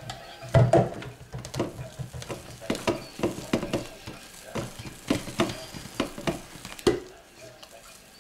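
Thick liquid-soap paste in a crock-pot being stirred by hand with an unpowered stick blender, giving a run of irregular knocks and clicks. The batter is starting to 'volcano', bubbling and rising, and stirring brings it back down.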